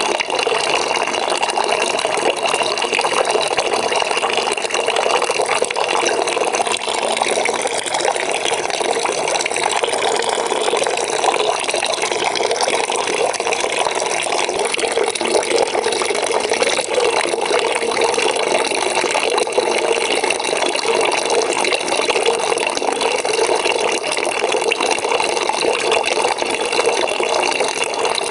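Water running steadily into a bucket from a tap, a constant splashing rush of filling water.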